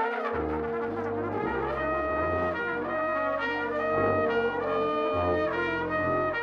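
A large ensemble playing, with trumpets and trombones in front holding long, overlapping notes over low bass notes that change roughly once a second.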